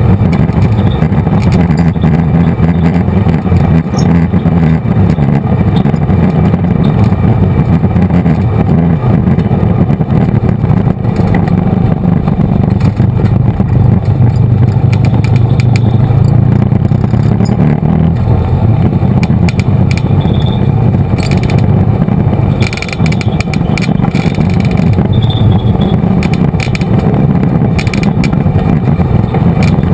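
Off-road ATV engine running steadily under throttle on a rough dirt trail, heard close up from the machine itself. Short clattering knocks of the machine jolting over bumps come in the last third, with a brief drop in engine level partway through.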